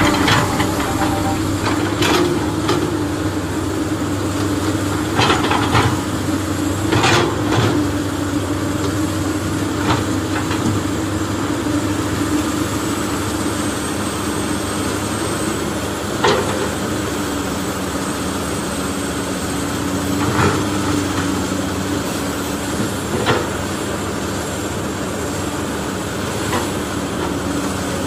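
A steady mechanical drone with a sharp plastic clack every few seconds as a toy excavator digs sand and drops it into a plastic toy dump truck's bed.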